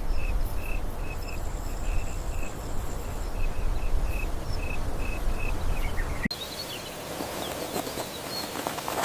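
Insect chirping in short, regular pulses, about two or three a second, over a low rumble. About six seconds in, the sound cuts abruptly to a quieter scene with faint high calls.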